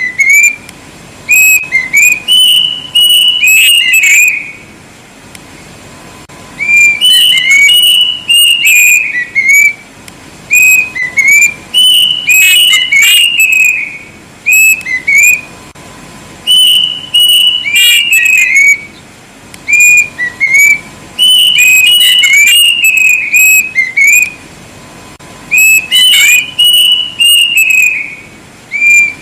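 Plaintive cuckoo (kedasih) singing very loud, clear whistled notes in bouts of a few seconds, each a run of short gliding whistles, repeated about six times with brief pauses between.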